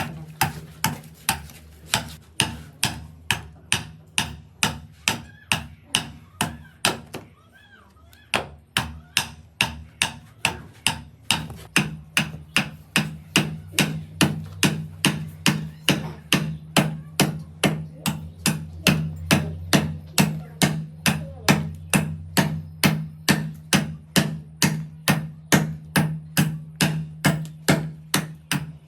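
Steady hand hammering at about two blows a second, stopping briefly about seven seconds in and then going on a little faster, over a steady low hum.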